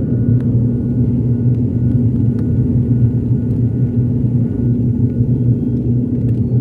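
Airplane during take-off: a steady, loud low rumble with an even hum running through it and no change in pitch.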